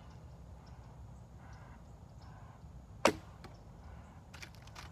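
Toelke Chinook traditional recurve bow shot once, about three seconds in: a single sharp snap of the string on release with a brief ring. A quiet shot.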